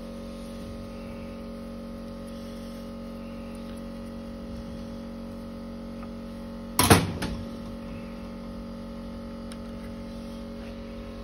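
Steady electrical hum, broken about seven seconds in by a loud half-second burst from the tractor's Bosch starter motor being briefly energised on the bench, with a smaller burst just after.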